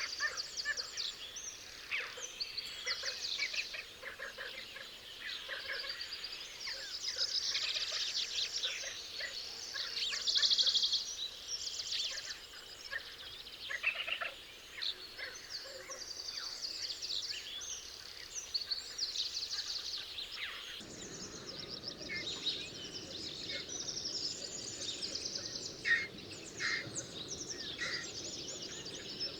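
A flock of birds calling over one another in a dense, continuous chatter of short, high-pitched calls. About two-thirds of the way through, the background changes abruptly and a steady low rushing noise comes in under the calls.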